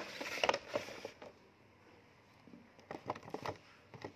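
Clear plastic window of a toy tractor's packaging crinkling and clicking under handling hands: a run of crinkles in the first second, then a few sharp clicks about three seconds in and again near the end.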